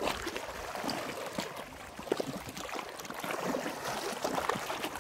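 Small lake waves lapping and gurgling against a flat rock shoreline: a steady wash of water broken by many small splashes.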